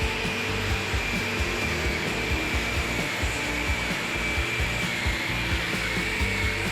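A motor-driven tool running steadily with a high, slightly wavering whine over a steady rush, with background music underneath.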